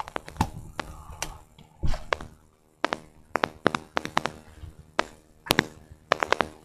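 A series of irregular taps and knocks, a few a second, some sharper and louder than others.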